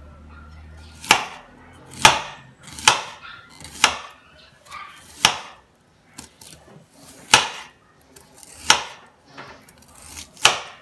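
Kitchen knife slicing a red onion into rings on a cutting board: the blade knocks sharply against the board about once a second, eight or so clear chops at an uneven pace, with softer cuts between.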